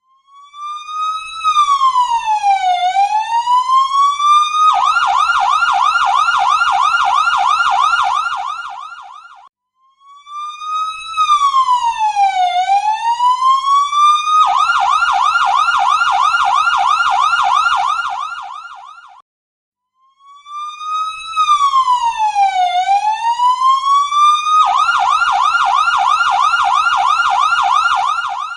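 Electronic ambulance siren going through its cycle three times. Each cycle is a slow wail that falls and rises over about four seconds, then switches abruptly to a fast yelp warbling about six times a second, then fades out briefly before the next cycle begins.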